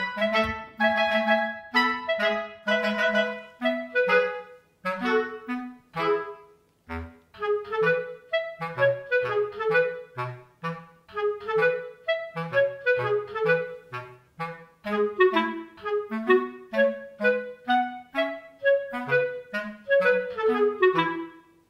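Background music: a bouncy tune of short, detached notes over a bass line.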